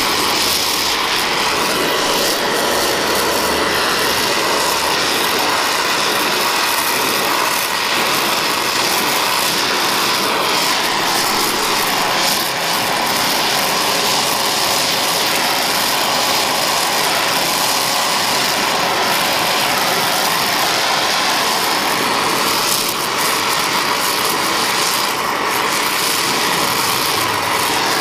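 Oxy-fuel torch flame hissing steadily while a cast-iron part is brazed with a flux-coated bronze rod.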